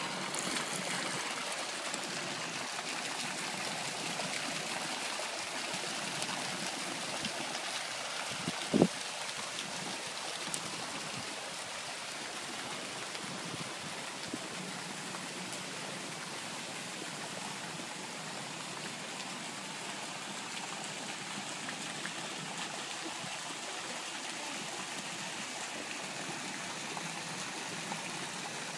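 Steady splashing of water from a pool fountain spout falling into a swimming pool, with a single thump about nine seconds in.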